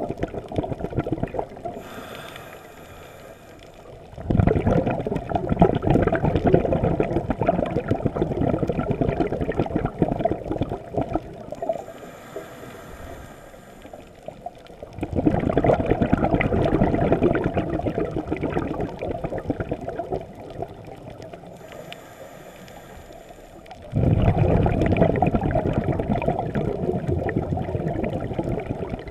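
Scuba diver breathing through a regulator underwater: a short hiss of inhalation, then a long rush of exhaled bubbles, repeating about every ten seconds with three exhales in all.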